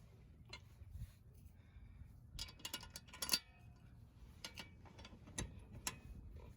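Faint, scattered clicks and taps, with a quick run of them about two and a half to three and a half seconds in.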